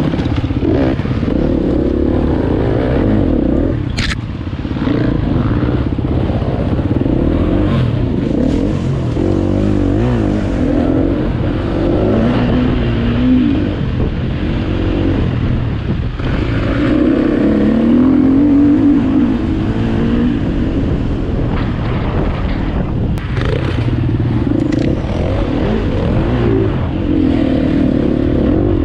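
KTM 250 EXC-F enduro motorcycle's single-cylinder four-stroke engine being ridden hard, its pitch rising and falling again and again as the throttle opens and closes. A few sharp knocks stand out, about four seconds in and again later.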